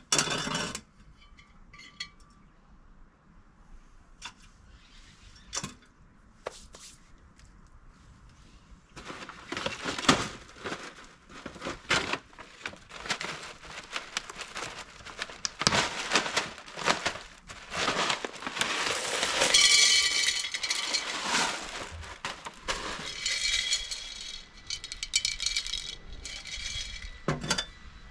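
Expanded clay pebbles poured from a bag into a terracotta pot, rattling and clinking in a dense run of small clicks that grows loudest a little past halfway. A single knock comes at the very start.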